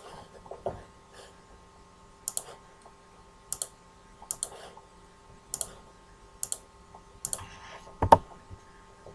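Computer mouse button clicking, a short sharp click about once a second at uneven intervals, some as quick double clicks, with one louder click near the end.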